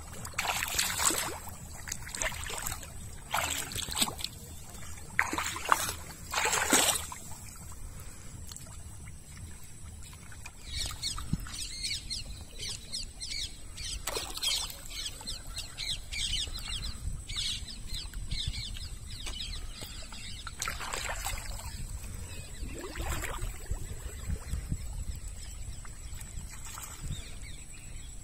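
Hands splashing and sloshing in shallow, muddy river water while feeling through the mud for fish: a quick run of splashes in the first seven seconds, then lighter dabbling, and two more splashes past the twenty-second mark, over a low steady rumble.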